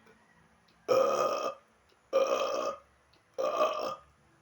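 A man burping on purpose: three burps, each about half a second long and about a second and a quarter apart.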